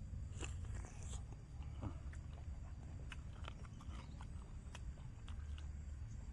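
A person chewing food, with small mouth clicks and smacks, over a steady low rumble.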